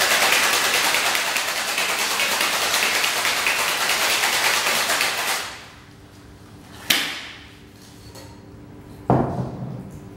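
Metal cocktail shaker full of ice being shaken hard: a dense rattle of ice against the tin for about five seconds that then stops. Two sharp knocks follow a couple of seconds apart as the shaker tins are knocked apart to open it.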